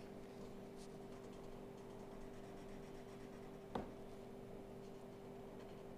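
Faint scratching of a Copic Ciao marker tip moving over paper as a drawing is coloured, over a steady low hum. A single short click about four seconds in.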